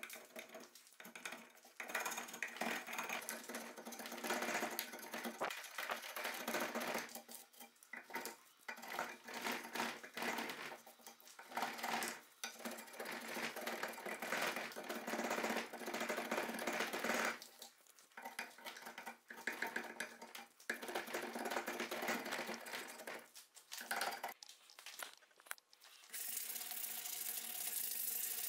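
Drawknife shaving a wooden axe handle clamped in a vise: a run of rasping pull strokes, each one to two seconds long, with short pauses between. About two seconds before the end the strokes give way to the steady rubbing of hand sanding.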